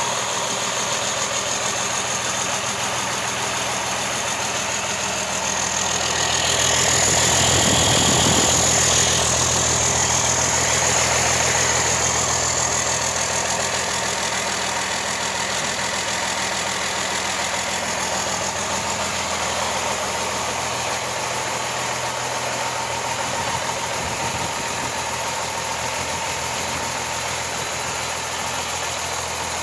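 1996 Cummins 6BT 5.9L mechanically injected inline-six diesel engine running steadily on a test stand, with a steady high whine over the engine note. It gets louder for a few seconds about a quarter of the way in, then settles back.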